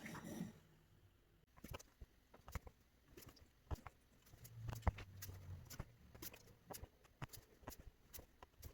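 Faint, irregular ticks and taps of hand embroidery: a needle passing through fabric stretched in a hoop.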